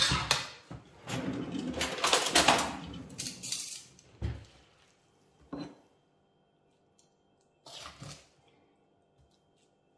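Dishing up noodle stir-fry: a serving utensil scraping and clattering in a metal wok for about four seconds, then a few separate knocks and clinks of the wok and ceramic bowls.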